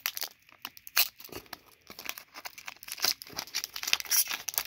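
Foil wrapper of a hockey card pack crinkling and crackling as it is handled and pulled open, with irregular sharp crackles, loudest about a second in.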